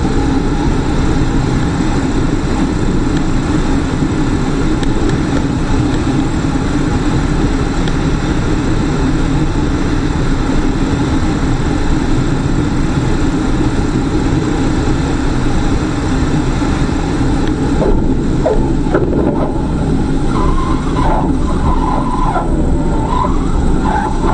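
Steady rushing airflow noise in the cabin of a single-engine light airplane gliding in to land with its engine out. About three-quarters of the way in the hiss thins, and wavering tones come and go as the plane rolls along the pavement.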